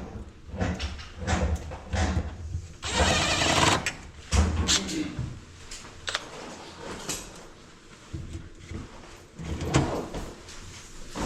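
Carpentry work on wooden cabinets: irregular knocks and scrapes of wood against wood, with a longer stretch of rasping or rubbing about three seconds in.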